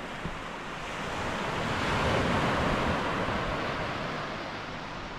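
Surf on a beach: one wave swells to its loudest about two seconds in, then washes out and fades.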